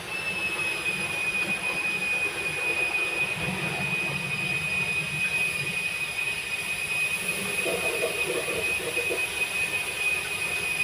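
A steady high-pitched whistle that comes on suddenly and holds one pitch, over a rushing hiss.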